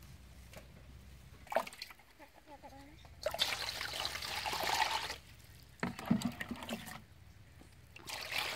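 Water poured from a pot into a stainless steel basin of leafy herbs, splashing onto the leaves in spells: a long pour starting about three seconds in, a brief splash a little later, and another pour near the end.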